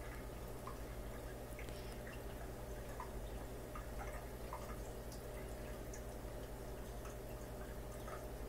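Aquarium background sound: a steady low hum with faint drips of water and small scattered ticks.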